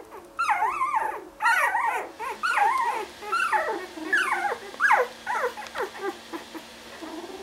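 Ten-day-old puppies squealing and whimpering in a pile, a quick run of short high cries that waver and slide down in pitch, one after another, tailing off after about six seconds.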